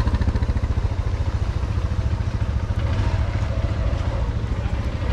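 Motorcycle engine running steadily at low revs while the bike is ridden slowly, a fast, even low pulse.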